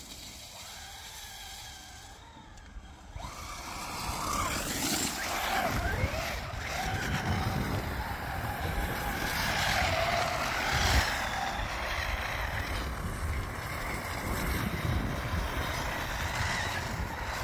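Traxxas Raptor R 4x4 VXL RC truck's brushless electric motor whining up and down in pitch as the truck drifts, its wheels spinning through snow. It gets louder about four seconds in.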